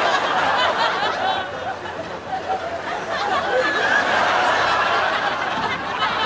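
Audience laughing steadily, many voices chuckling and snickering together.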